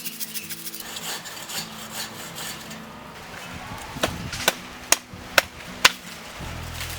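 Hand tool working wood: a scraping, rasping texture, then five sharp hammer blows on wood, about two a second. Faint background music with held notes runs underneath.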